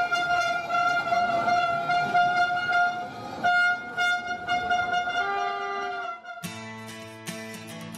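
Bagpipes playing a sustained, steady-pitched reedy tone, with a brief break partway and a shift in pitch near the end; about six seconds in they cut off abruptly and strummed acoustic guitar music takes over.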